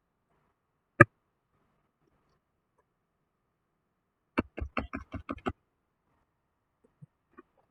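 A single sharp click, then a quick run of about eight clicks in just over a second, then two faint clicks near the end.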